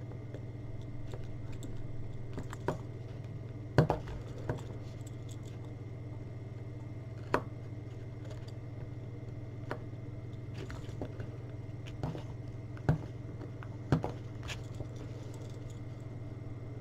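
Scattered clicks and taps from handling a P5 headphone earcup while searching under its ear pad for a screw, over a steady low hum.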